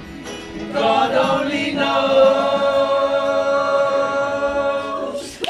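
A man and children singing together without words the recogniser could catch, moving through a few notes and then holding one long closing chord that stops just before the end.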